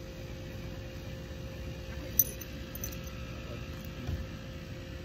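Small metallic clinks from a dog's collar ring and tag: one sharp clink about two seconds in and a fainter one shortly after. A soft bump about four seconds in, over a low steady rumble.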